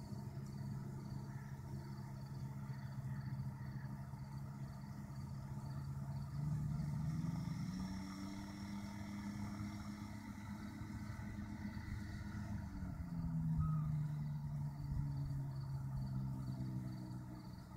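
Distant Quad City Challenger ultralight aircraft engine running steadily; about six seconds in the throttle opens and the engine note rises, holds for several seconds, then eases back down about thirteen seconds in.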